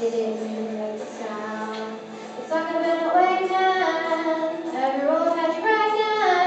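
Girls' choir singing with a girl soloist on a microphone, the singing growing louder and fuller about two and a half seconds in.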